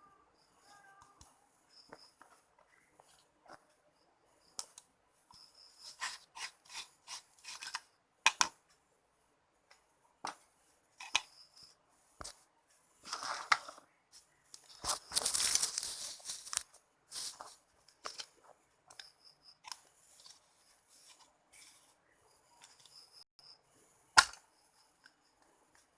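Small hand-work sounds: scattered clicks and snips, a denser scraping, rustling stretch about halfway through, and one sharp click near the end.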